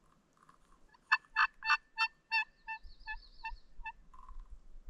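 A crow locator call blown for turkey hunting: a string of about nine harsh caws, loud at first, then fading and spacing out. It is the call a hunter uses to make a turkey gobble back.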